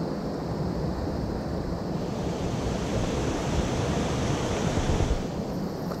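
Swollen mountain stream rushing steadily, an even hiss of fast water running high after rain. The hiss grows brighter from about two seconds in and eases off around five.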